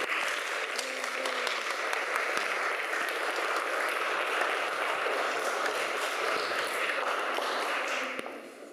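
Audience applauding: a steady crowd of hand claps that starts right as the piano music ends and fades out about eight seconds in.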